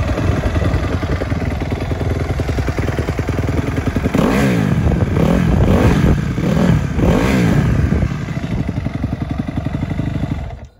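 Honda CRF250R's single-cylinder four-stroke engine idling, then revved in several quick throttle blips that rise and fall, then settling back to idle. The sound cuts off suddenly near the end.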